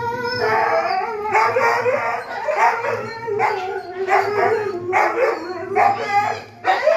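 Siberian husky howling and whining in long wavering calls with short breaks, while tied to another husky during mating.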